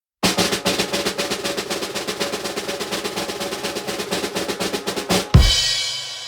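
Outro music: a fast drum roll of about five seconds ending in one loud crash, with a cymbal ringing out and fading.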